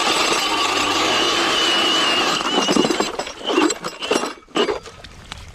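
Drill-powered electric ice auger running as it bores through lake ice, with a high wavering whine. It cuts out about three seconds in, followed by a few knocks and clatters.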